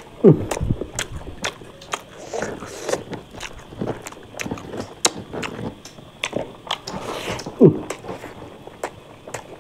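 A person eating close to the microphone: wet mouth clicks and smacks of chewing. Two loud, short, low sounds fall in pitch, one near the start and one about 7.5 seconds in.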